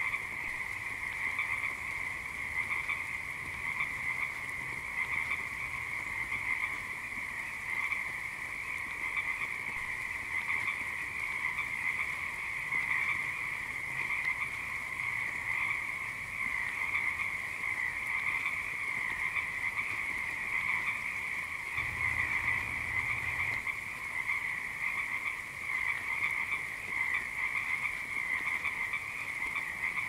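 Dense chorus of frogs croaking continuously, many calls overlapping into a steady unbroken sound.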